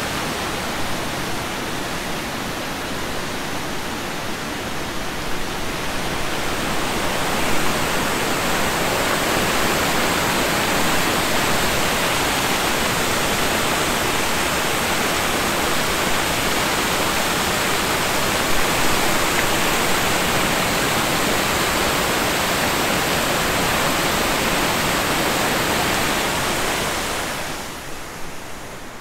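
Water spilling over a river weir and rushing through rocky rapids: a loud, steady rush. It swells about six seconds in and falls away sharply near the end.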